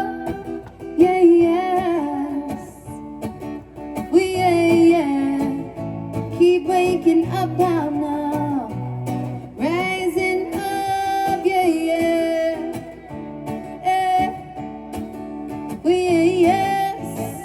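Acoustic guitar strummed under a singer's long, wavering sung phrases, in a stripped-down acoustic arrangement of a reggae song.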